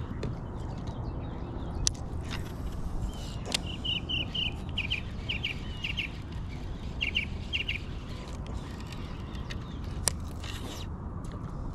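Small birds chirping: runs of short, quick, high chirps in clusters, over a steady low background noise, with a few sharp clicks.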